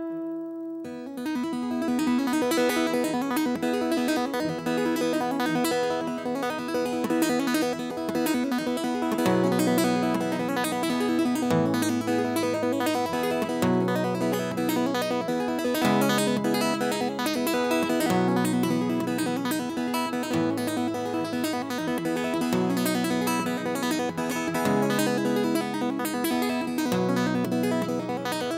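Acoustic guitar played live: after a brief pause, it starts again about a second in and plays on, with a low bass line moving to a new note about every two seconds from about a third of the way through.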